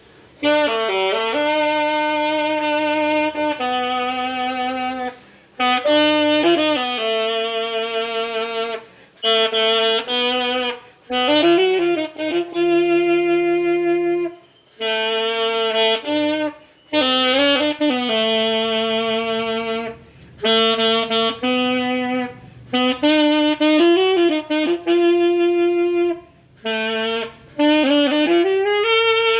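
Solo saxophone playing a slow melody in phrases, with held notes that waver with vibrato and brief pauses between phrases.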